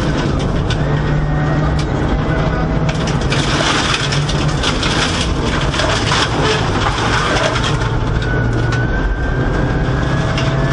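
Inside the cabin of a Subaru Impreza WRX STI R4 rally car at full speed, its turbocharged flat-four running hard and stepping up and down in pitch through gear changes. Over it is a dense hiss of tyres, snow and grit on the underbody, heaviest about three to six seconds in.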